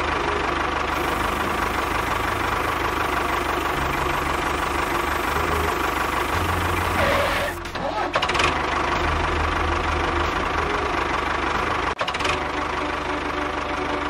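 Tractor engine running steadily. It breaks briefly about eight seconds in and cuts out for an instant near twelve seconds.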